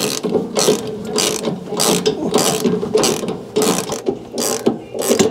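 Ratchet wrench clicking in repeated strokes, about two or three a second, as puller bolts are tightened to draw a washer's trunnion off its shaft.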